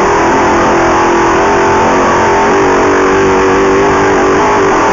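Off-road race vehicle's engine running hard at steady high revs, heard onboard. Its pitch lifts slightly about halfway through.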